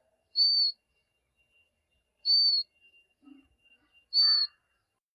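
Warbler chick's begging call: a single clear, high whistled note repeated three times, about two seconds apart, as the young bird pleads to be fed.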